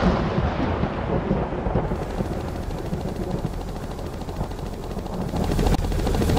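A loud, deep rumble with a hiss over it, strongest at the start, easing off through the middle and building again near the end.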